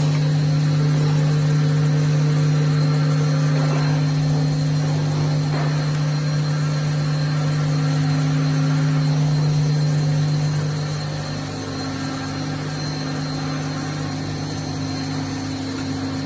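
Steady machinery hum from a CNC machine-tending cell: a low drone with a fainter higher tone and a thin high whine. It drops slightly in level about eleven seconds in, and a couple of faint knocks come through a few seconds in.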